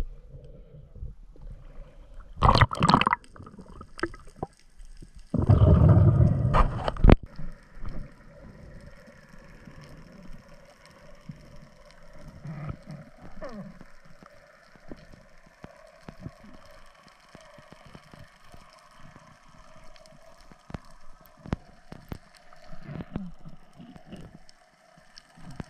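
Water splashing at the sea surface as a spearfisher ducks under, with loud bursts about two and six seconds in. After that, the muffled quiet of underwater, with scattered faint clicks and a faint steady hum.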